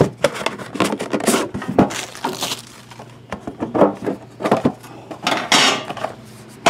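Trading cards and their packaging being handled on a table: scattered clicks and taps, with a longer scraping rustle about five and a half seconds in.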